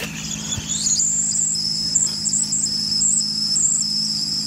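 A heating oil tank's vent alarm whistle sounding as oil is pumped in through the fill pipe: a high whistle that rises in pitch over the first second, then holds a high, wavering pair of tones over a steady low hum. The whistle means air is being pushed out of the vent as the tank fills, and it goes quiet when the tank is nearly full.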